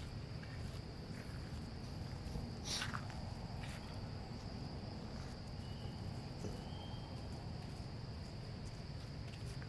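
Insects keeping up a steady high-pitched drone over a low rumble, with a short crackle about three seconds in.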